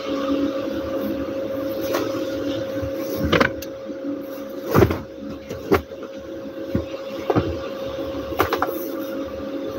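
Bedding being handled: blankets rustling and a few soft thumps as the bed is smoothed and patted, the loudest about five seconds in. A steady electric hum runs underneath.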